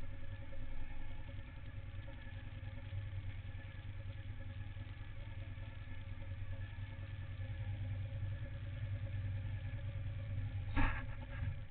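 Suzuki SV1000N's 90-degree V-twin idling steadily in neutral, with one sharp knock near the end.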